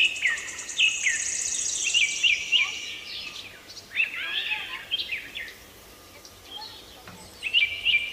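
Birds chirping in quick, short downward-sweeping notes, repeated over and over, with a high insect-like trill over them during the first few seconds. The chirping thins out briefly around six seconds in, then resumes.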